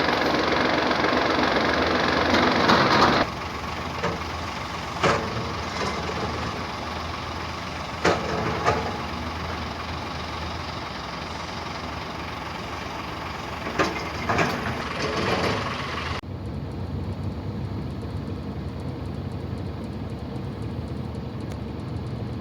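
A motor vehicle running: a steady engine and road noise, louder for the first three seconds, with a few short knocks along the way.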